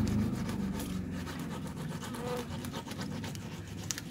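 Quick, repeated scratchy scraping as fish, Mozambique tilapia (mujair), are scaled and cleaned by hand.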